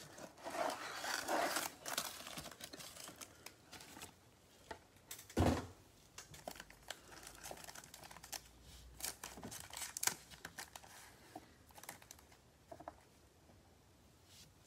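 Foil trading-card packs and a cardboard box rustling and crinkling under gloved hands as the box is unpacked, busiest in the first few seconds. One thump about five seconds in, then scattered light crinkles.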